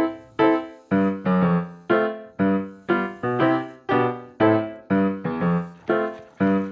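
Background music: a piano-like keyboard playing struck notes about twice a second, each one fading before the next.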